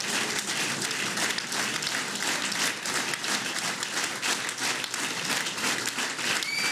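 Audience applauding steadily with dense clapping. Near the end a high, wavering whistling tone joins in.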